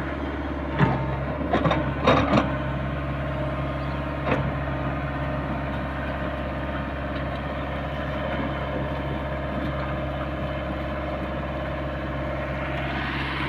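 A heavy diesel machine engine running steadily, with a few sharp metallic knocks about one to two and a half seconds in and again about four seconds in. Near the end a sound rises and then falls in pitch.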